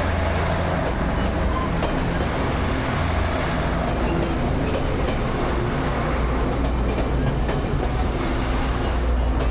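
A train running past with a steady low rumble and rattle.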